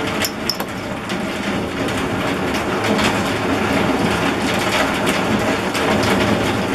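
A long metal spoon stirring and pressing chopped Chinese toon leaves in a glass jar, a continuous crunchy scraping with small clicks against the glass; from about halfway, olive oil is poured in from a glass bottle and the sound gets a little louder.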